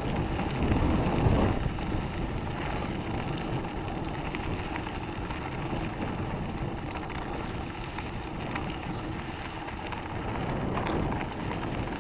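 Mountain bike riding on a dirt and gravel fire road: tyres crunching and rattling over the ground with wind rushing on the handlebar-mounted microphone, a little louder about a second in.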